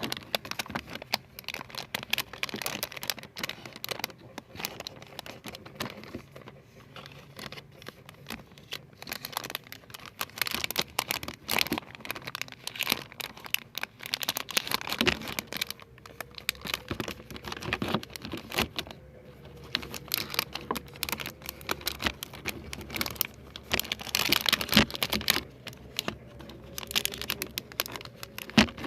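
Close-up ASMR handling sounds: a dense, continuous stream of small crinkling, crackling and tapping noises, with louder flurries about ten seconds in and again near the end.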